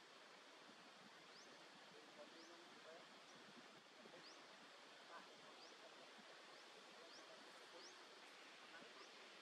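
Near silence: faint outdoor ambience, a soft hiss with a short, high rising chirp repeating about once a second.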